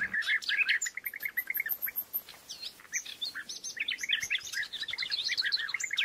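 Several small birds chirping in a busy chorus of short, quick calls, thinning out in the middle and busier again near the end.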